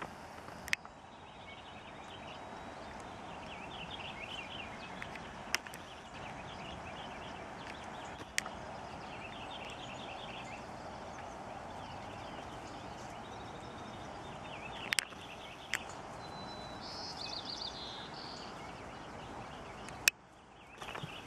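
Outdoor pasture ambience: a steady background noise with small birds chirping in short trills every few seconds, and a few sharp clicks.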